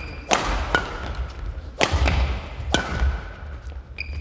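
Badminton rally: a series of sharp racket hits on the shuttlecock, about one a second, over the thuds of footwork and brief squeaks of court shoes on the hall floor.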